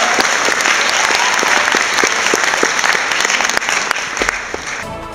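Audience applauding, the clapping slowly dying down and then cut off abruptly near the end.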